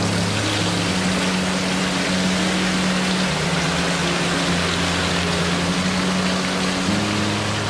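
Bouillon pouring in a heavy stream from a tilted steam kettle into a conical strainer over a stockpot: a steady rushing splash. Background music with held low notes plays underneath.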